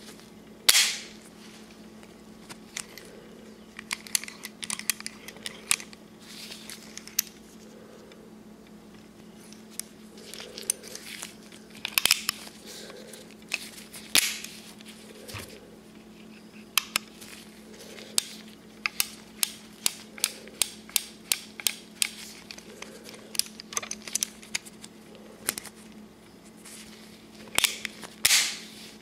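Sharp metallic clicks from a brass-framed 1851 Colt Navy .44 cap-and-ball revolver as its action is worked by hand, with a fairly regular run of clicks about two a second through the second half and a few louder clicks scattered among them.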